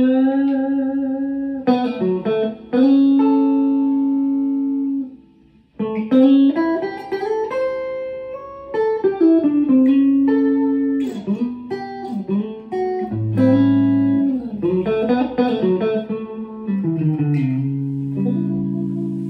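Stratocaster-style electric guitar played through an amp: a blues lead line in A of single notes with slides and bends, running through the dominant 7 arpeggio shapes. The playing breaks off briefly about five seconds in, then goes on.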